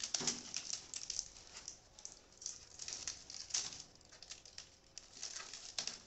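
Adhesive tape being peeled off a cardboard packing insert while the cardboard is handled, in bursts of short scrapes, crackles and taps.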